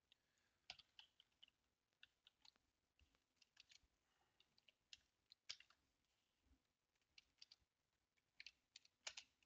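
Faint, irregular keystrokes on a computer keyboard as a word is typed.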